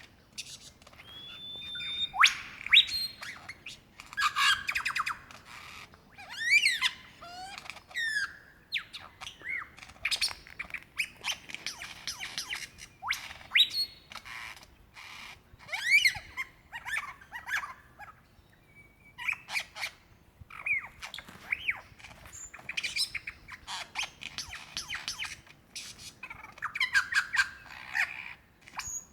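Male superb lyrebird singing a long, varied medley of calls that mimics other birds: sharp clicks, clear whistles, quick rising and falling sweeps and warbled trills, following one after another with only brief pauses.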